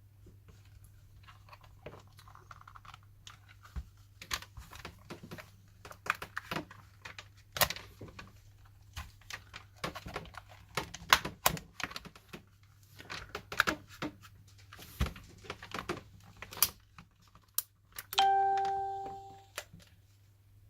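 Irregular plastic clicks and snaps from a PS4 controller's plastic shell being pried apart with a plastic opening tool. Near the end comes one loud ringing tone that fades over about a second and a half.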